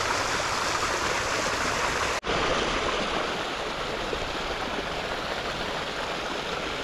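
Creek water running steadily, an even rushing noise, with a momentary dropout about two seconds in.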